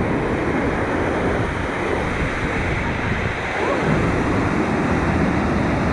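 Waterfall rushing steadily: a dense, even roar of falling water with little high-pitched sound in it.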